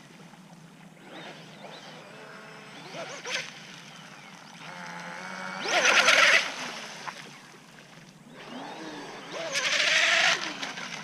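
RC rigger longtail boat running fast, its 3200kv brushless outrunner motor and surface propeller whining with a hiss of spray. It swells loudly twice as it passes close, around 6 s and again near 10 s, its pitch rising and falling.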